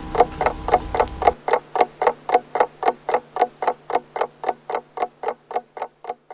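Pendulum clock ticking steadily, about four ticks a second, the ticks fading out near the end. A low steady hum underneath cuts off abruptly about a second in.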